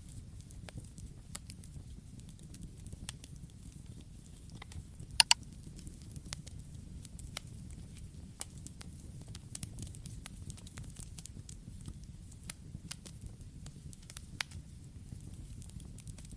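Campfire burning with a low steady rumble of flames and scattered crackles throughout, with a loud double pop about five seconds in.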